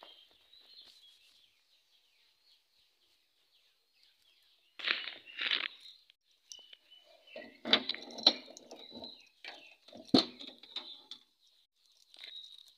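Small birds chirping in the background while a vehicle door is handled and opened: two scuffs about five seconds in, then sharp clicks and knocks from the latch and door, the heaviest about ten seconds in.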